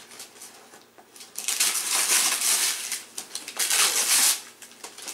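Wrapping paper being torn off a present: two long rips, the first about a second and a half in, the second a little before four seconds, with crinkling between them.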